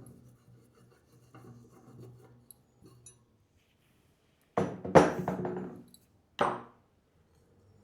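Antique chandelier parts clinking and clanking as the feet are taken off the heavy base. Faint handling noise comes first, then three sharp clanks in the second half; the middle one is loudest and rings briefly.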